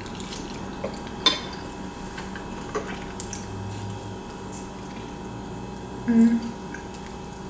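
Eating sounds: a metal fork clinking against a ceramic casserole dish, the sharpest clink about a second in, with a few lighter clicks and chewing of mac and cheese between. A short hum from the eater comes about six seconds in.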